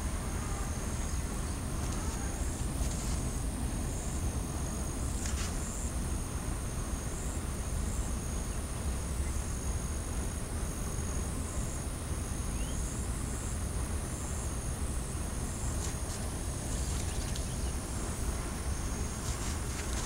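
Insects calling: a steady high-pitched trill with a second high note pulsing about every two-thirds of a second, over a low rumble.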